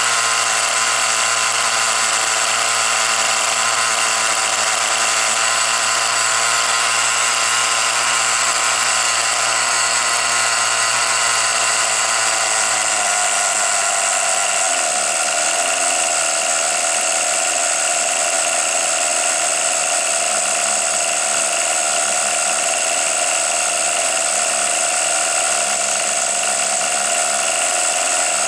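Small glow-fuel engine of a Tamiya TGX 1/8 nitro RC car running with a steady high-pitched whine, its note shifting about halfway through.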